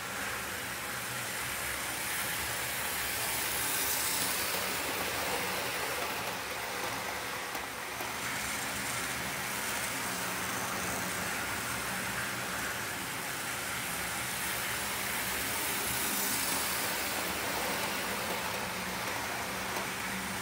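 OO gauge model trains running on the track, including a model Class 58 diesel locomotive hauling coal wagons: a steady whirring rumble of small electric motors and wheels on the rails, a little louder about four seconds in and again past the middle.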